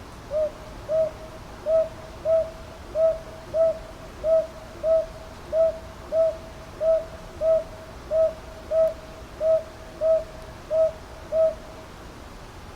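Northern boobook (brown hawk-owl) calling: a long series of about eighteen short, low hoots at an even pace of about three every two seconds, stopping near the end.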